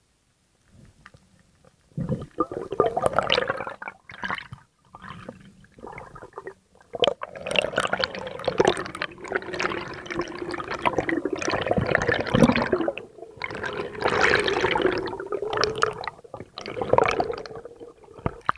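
Water gurgling and rushing, heard underwater through a camera housing, in loud uneven surges that begin about two seconds in.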